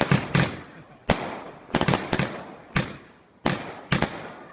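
A Standard Fireworks Colossus firework going off: a quick string of about a dozen sharp bangs, often in close pairs, each trailing away before the next.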